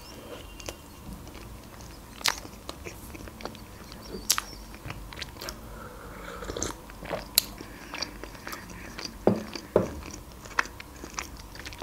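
Mouth sounds of eating a soft frosted cinnamon roll: chewing with scattered sharp lip and tongue smacks, and a sip from a mug about halfway through.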